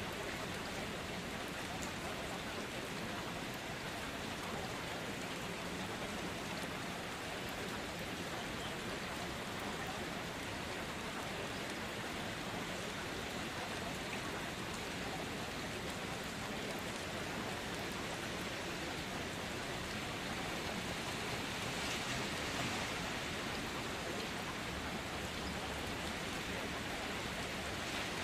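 Steady rain falling, an even hiss with no breaks, swelling a little about three-quarters of the way through.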